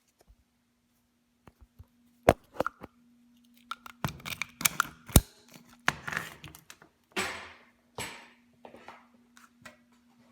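Scattered clicks, knocks and short scraping or rustling noises of objects being handled, over a faint steady hum; the sharpest knocks come about two and five seconds in.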